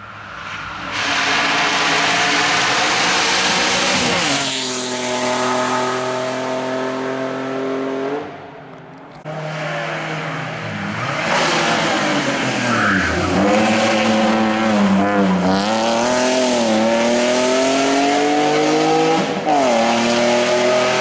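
Alfa Romeo 156 V6 race car accelerating hard uphill, the engine revs climbing and then dropping sharply at each gear change, several shifts in a row.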